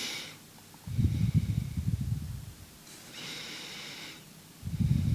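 Breathing close to the microphone: two hissing breaths, each followed by a low, rumbling puff of air against the microphone.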